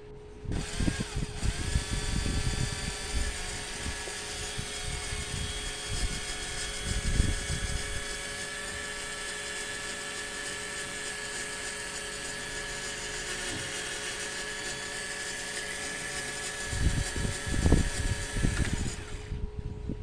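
The small electric motor of a homemade RC truck runs with a steady high whine, spinning the driveshaft and its connector into the differential. It starts about half a second in and stops near the end, with knocks near the start and shortly before it stops.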